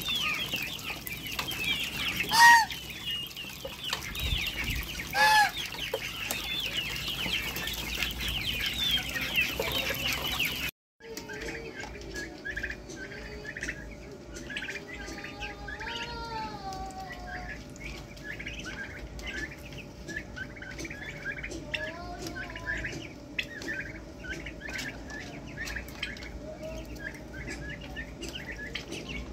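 A flock of domestic poultry calling over one another: constant high peeping and chattering, with two loud honks a few seconds apart near the start. After a brief cut about eleven seconds in, ducklings and young turkeys peep steadily, with a few longer sliding calls.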